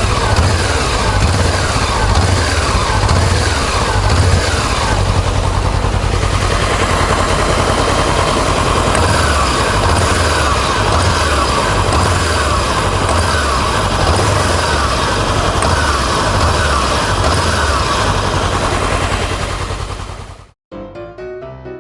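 Honda CBR400R motorcycle's parallel-twin engine running steadily, fading out about twenty seconds in as piano music begins.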